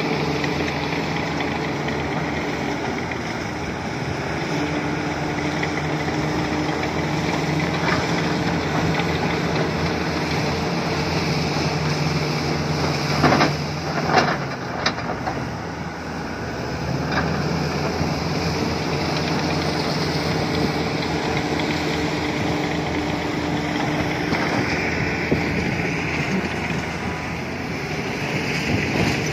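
Volvo 480 excavator's diesel engine running steadily while the machine works. A few sharp knocks come about halfway through.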